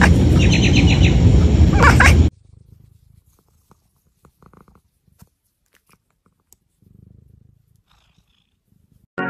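A loud, low rumbling animal sound that cuts off suddenly about two seconds in, followed by faint scattered small sounds.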